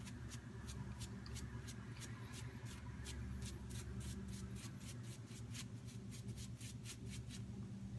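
Gillette Fat Handled Tech safety razor scraping through stubble in quick, short strokes, about four a second.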